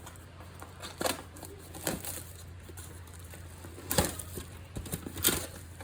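Packaging of a fireworks assortment being opened by hand: crinkling and tearing, with short sharp crackles about one, two, four and five seconds in, over a steady low hum.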